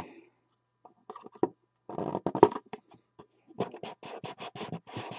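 Hands sliding the lid off a cardboard trading-card box and handling the box: cardboard scraping and rubbing in quick runs of short strokes, in three spells with short gaps between.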